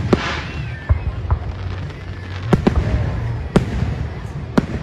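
Aerial fireworks bursting in a display: a string of sharp bangs, roughly one a second, over a steady low rumble.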